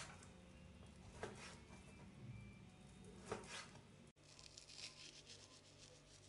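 Kitchen knife cutting through raw meat onto a plastic cutting board: three faint chops about two seconds apart. After about four seconds, a faint fine patter as seasoning is sprinkled over the diced meat in a bowl.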